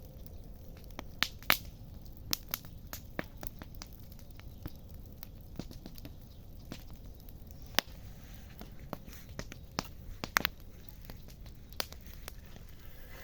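Wood bonfire crackling: irregular sharp snaps and pops, the loudest about one and a half, eight and ten seconds in.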